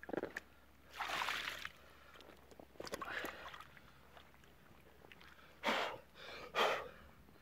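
Water splashing and sloshing in five short bursts, the longest about a second in and the loudest two near the end.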